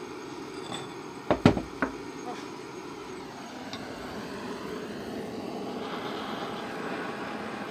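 A quick cluster of sharp metal clicks and knocks about a second and a half in, as locking pliers are clamped onto the axe handle. From about five and a half seconds a handheld butane blowtorch hisses steadily as its flame scorches the wooden axe handle.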